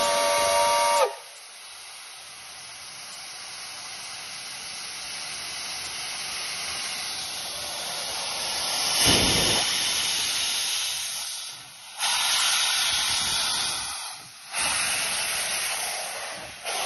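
Soviet steam locomotive's whistle sounds a chord of several tones and cuts off about a second in. It is followed by a steady hiss of steam venting from around the cylinders, swelling towards the middle and breaking off sharply twice near the end before resuming.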